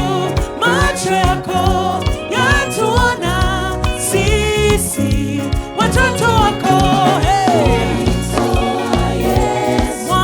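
Gospel praise-and-worship song: voices singing a wavering melody over a full band with bass and a steady drum beat.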